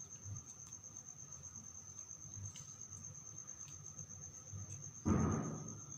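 A steady high trill of crickets in the background. About five seconds in, a person sneezes once, a sudden loud burst that fades quickly.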